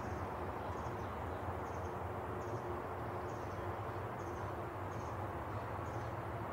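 Outdoor back-yard ambience: a steady low rush of distant background noise, with a small bird giving a short high chirp about once a second.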